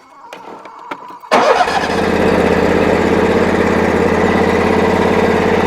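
A few faint clicks, then an engine starts abruptly about a second in and settles straight into a steady, even run.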